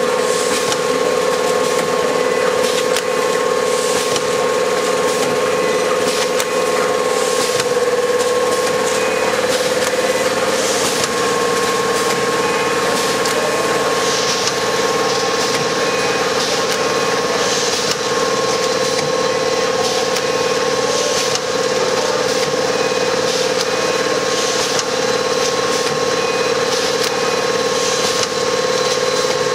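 Four-lane automatic vertical packing machine running: a steady motor hum with a constant whine, and a regular clack of its working cycle about every second and a half.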